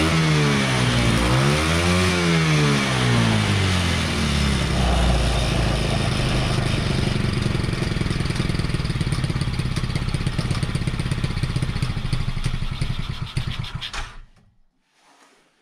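Tao Tao 110cc Coolster ATV's single-cylinder four-stroke engine running, revved up and back down about two seconds in, then held at a steady run until it is shut off suddenly near the end. The carb is being tuned for smooth throttle response at half a turn out on the mixture screw, and the owner hears an air leak at the exhaust head.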